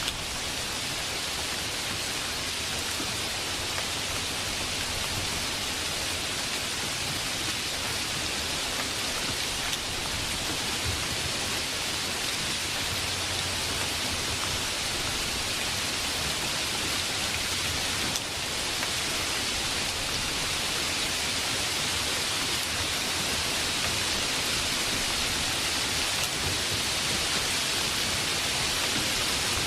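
Steady rain: an even, continuous hiss of falling rain.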